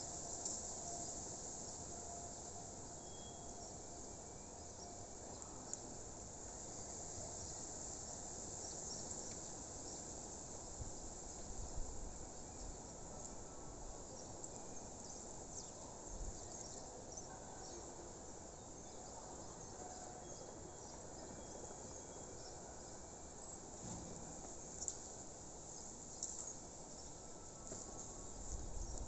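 Outdoor nature ambience: a steady, high insect chorus with fine ticking, a few faint short bird calls, and a couple of soft low knocks.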